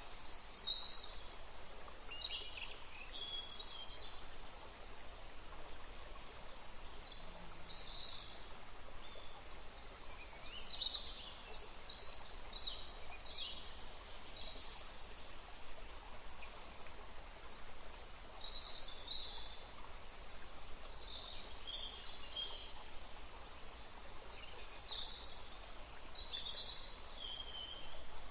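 Small birds chirping and calling in many short, high notes over a steady background hiss.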